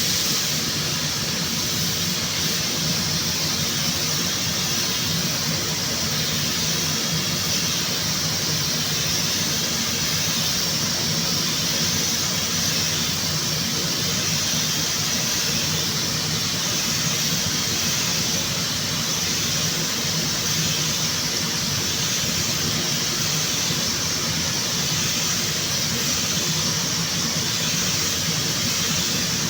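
Paint spray gun hissing steadily as compressed air and paint are sprayed, unbroken with a low hum underneath.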